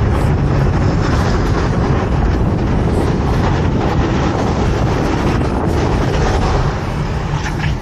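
Steady rush of wind and road noise from a moving vehicle, with wind buffeting the microphone; it eases slightly near the end.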